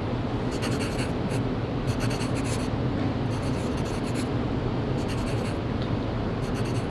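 Pen-on-paper scribbling sound effect of a signature being written: a continuous scratching in quick strokes.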